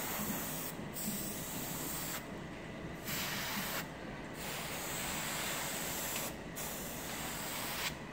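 Gravity-feed airbrush spraying paint, a steady airy hiss that stops and restarts about four times as the trigger is released and pressed again between passes, then stops near the end.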